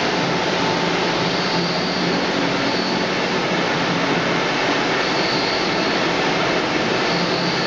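Steady machinery noise of a running French fries production line: motors, conveyors and processing tanks running together, with a faint high whine that comes and goes.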